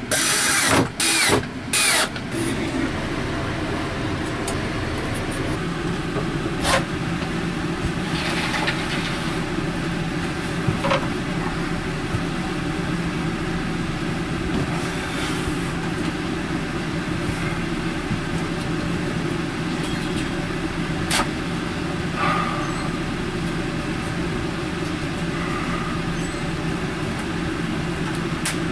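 Cordless drill driving screws into the bed frame in a few short bursts during the first couple of seconds, then a steady low mechanical hum with a constant drone and a few light knocks of wooden slats being handled.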